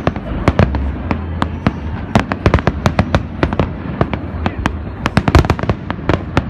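Fireworks display: a dense run of sharp cracks and bangs, several a second at irregular spacing, over a low rumble.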